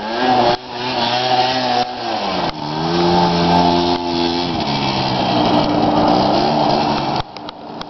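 Small scooter engine revving hard during a burnout. The pitch rises and falls repeatedly, holds high for a moment, then drops off sharply near the end.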